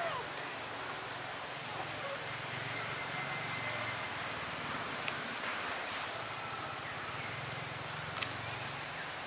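Insects droning steadily in one high, unbroken tone, with a faint low hum beneath.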